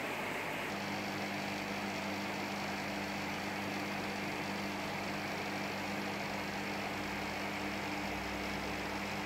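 Steady hiss of aquarium filter pumps and bubbling water, joined a little under a second in by a steady low hum.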